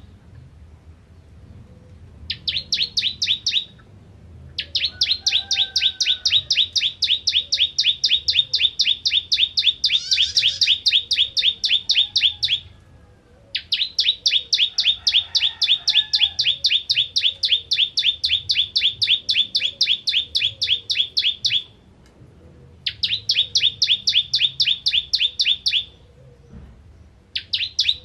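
Caged ciblek kristal, a prinia, singing long, fast trills of sharp high notes, about ten a second, in bouts of up to eight seconds broken by short pauses.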